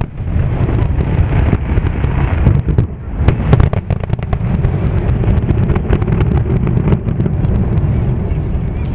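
Fireworks crackling and popping in many sharp cracks, thickest in the second half, over a steady low rumble.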